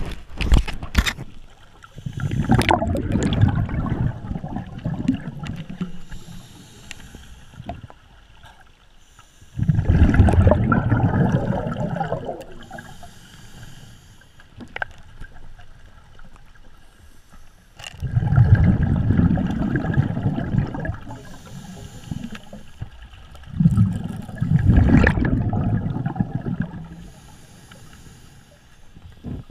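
Scuba regulator exhaust releasing bursts of exhaled bubbles, heard underwater: four gurgling bursts of two to three seconds each, several seconds apart, with quieter breathing stretches between. A few sharp knocks near the start.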